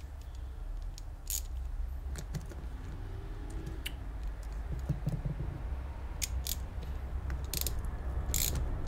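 Scattered small metallic clicks and taps from a spanner working a nut on a Bing carburettor, over a steady low hum.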